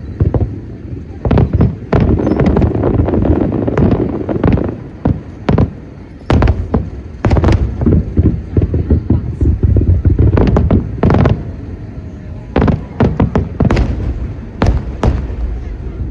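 Aerial fireworks shells bursting overhead in rapid, irregular succession: many sharp bangs over a continuous low rumble.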